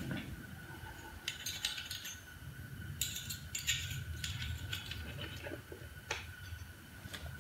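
Scattered light metallic clinks and taps as a piston and connecting rod are worked down into a Ford flathead V8 block, the rod's big end meeting the crankshaft journal.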